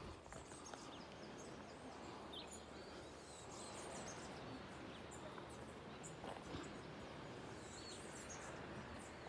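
Faint outdoor ambience: a steady hiss with a few scattered high bird chirps.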